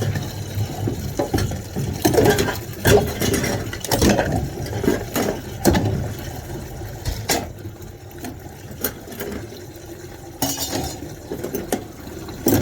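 Washing up by hand in a sink of hot water: water sloshing and splashing, with irregular clinks and knocks of pots and dishes, busiest in the first half.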